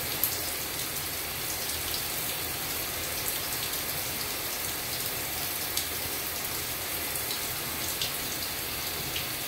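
Shower running: a steady hiss of water spray falling on hibiscus leaves, with a few sharper drop splats here and there.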